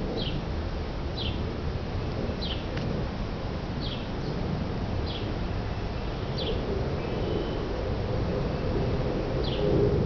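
A bird giving short, high, downward-sliding chirps every second or so, with a longer pause near the end. Under them runs a steady low rumble of outdoor background noise.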